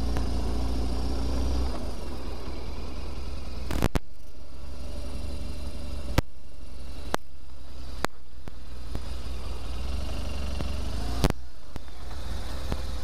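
Motorcycle engine running at low speed and then idling as the bike rolls up to a fuel pump, a steady low rumble. Several sharp clicks sound over it in the second half.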